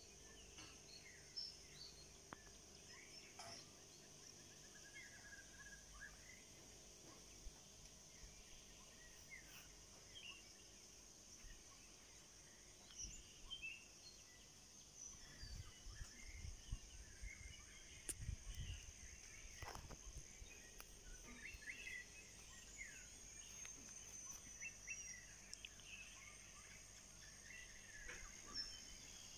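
Faint outdoor ambience of a steady high insect drone with many short, scattered bird chirps. A few low thumps and rumbles come about midway and are the loudest sounds.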